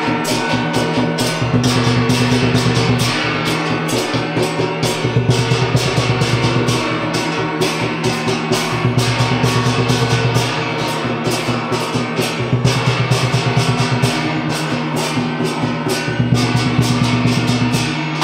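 Music with drums beating a fast, steady rhythm over sustained low notes that change every couple of seconds.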